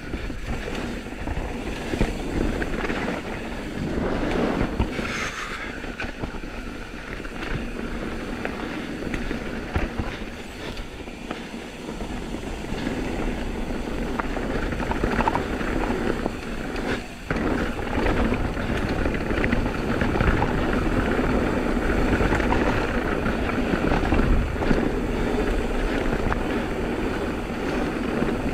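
Intense M16 downhill mountain bike riding down a dirt trail: tyres rolling over dirt and roots and the bike rattling, with a few sharp knocks from hits, over steady wind rush on the GoPro microphone.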